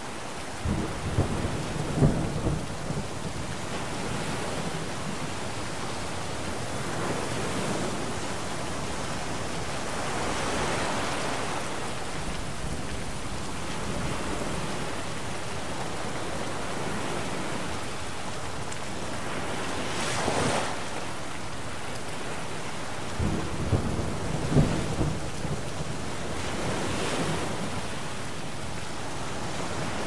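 Thunderstorm: steady rain with two low rolls of thunder, one just after the start and one about three-quarters of the way through, and a few louder rushing surges in between.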